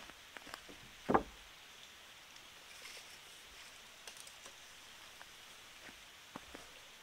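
A sawn timber board set down on a wooden frame, giving a single dull knock about a second in, followed by a few faint clicks and taps.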